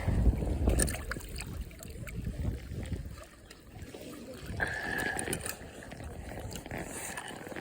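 Water trickling and sloshing, with a few knocks and rustles of handling close to the microphone, heaviest in the first second.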